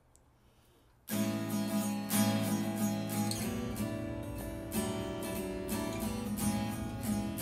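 Background music, a strummed acoustic guitar, starting suddenly about a second in.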